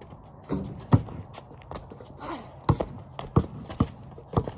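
Basketball bouncing on a concrete driveway: one loud bounce about a second in, then a run of sharp dribble bounces about two a second near the end, with footsteps scuffing on the concrete.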